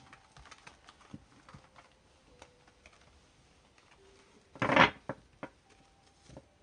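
Oracle cards shuffled by hand on a cloth: a run of light clicks and slides as card edges knock together, with one louder, brief swish a little under five seconds in as the cards are swept together.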